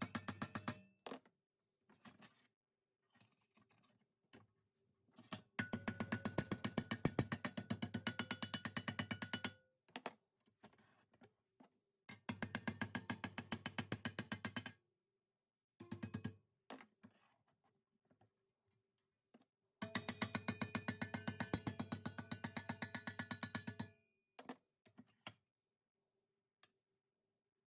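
Steel patch panel clamped in a vise being hammered over to bend its edge: three runs of rapid, evenly spaced metallic strikes, a few seconds each, with pauses and a few single knocks between them.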